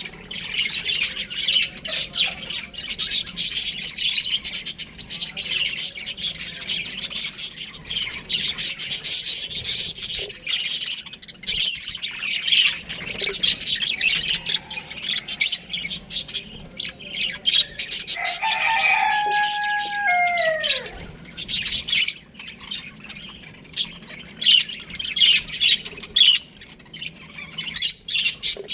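A flock of budgerigars chirping and chattering continuously. About two-thirds of the way through, a single longer call with a falling end cuts through, likely a rooster crowing once.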